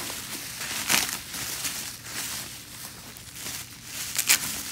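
Plastic bubble wrap crinkling as it is handled and unwrapped, with a sharper crackle about a second in and another near the end.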